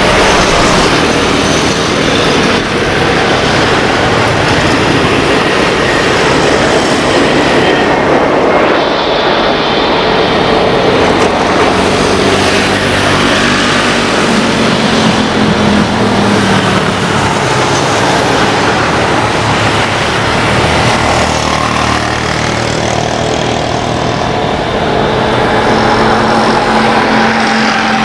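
Airbus A320 jet engines (IAE V2500) running as the airliner lands and rolls out on the runway: a steady, loud rush with a low drone that swells near the middle and again near the end.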